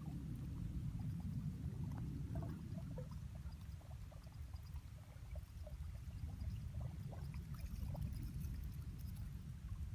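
A steady low rumble with faint, scattered trickling and lapping water sounds.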